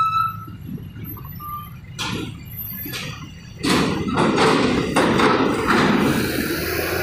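Heavy vehicles driving off a ferry's ramp onto a steel-grating dock ramp: a low engine and tyre rumble with a knock about two seconds in. From about three and a half seconds in, a bus coming down the ramp brings a much louder clattering rumble with repeated knocks from the steel plates.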